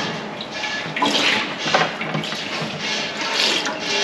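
Milk squirting into a bucket as a cow is hand-milked: a series of short hissing squirts in a rough rhythm.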